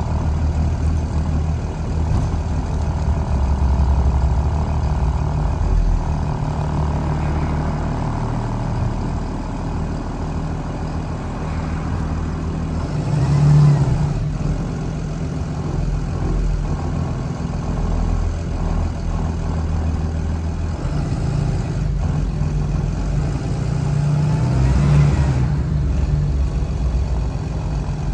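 2013 Blue Bird All American school bus engine running steadily, swelling louder twice, about halfway through and again near the end.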